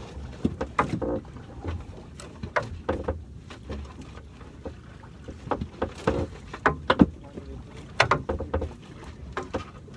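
Irregular knocks, clicks and scrapes of a fishing net and its line being hauled by hand over the gunwale of a small boat, with the loudest knocks about seven and eight seconds in.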